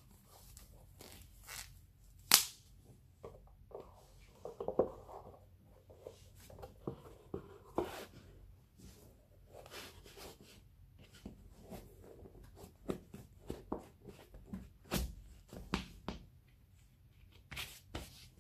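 Close-up handling sounds of putting on a black leather lace-up shoe and tying its laces: a string of short rustles, scrapes and clicks, the sharpest snap about two seconds in.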